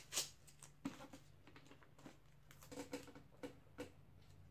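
Brown kraft wrapping paper ripping briefly at the start, then faint rustling and a few light taps as a paper-wrapped book is handled and torn open.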